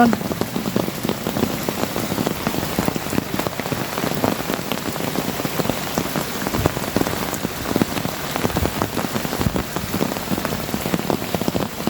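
Steady heavy rain, drops pattering densely on an umbrella held close over the recording phone.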